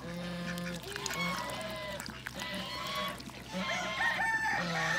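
Chickens clucking, then a rooster crows from about three and a half seconds in.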